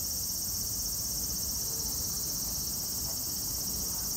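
A steady, high-pitched insect chorus, over a low rumble.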